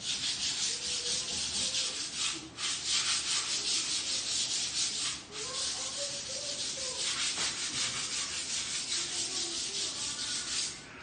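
Sandpaper rubbing over a painted cabinet frame: a steady scratchy rasp that pauses briefly about two and five seconds in.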